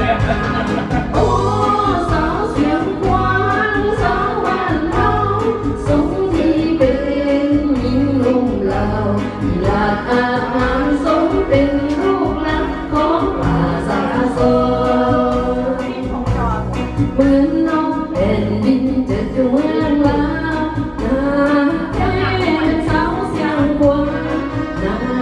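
A woman singing a melody into a handheld microphone through loudspeakers, over amplified accompaniment with a steady bass beat.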